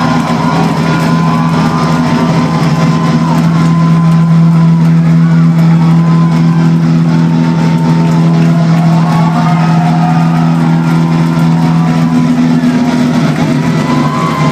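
Live rock band playing loud, with one low note held steadily throughout and higher wavering tones sliding over it.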